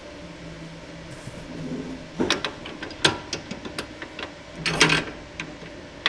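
Shoe sole press being set and clamped onto a leather oxford on its last: a low hum at first, then mechanical clicks and knocks, with two short rushing bursts about two and five seconds in.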